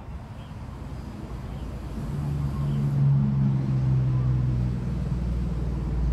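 Motor vehicle engine hum on the nearby road, a steady low drone that swells about two seconds in and stays loud.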